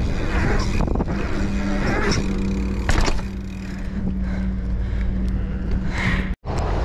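Bicycle rolling fast over smooth concrete: heavy wind rush on the mic over a steady low hum, with a sharp knock about three seconds in as the bike hits a transition. The sound cuts out for an instant near the end.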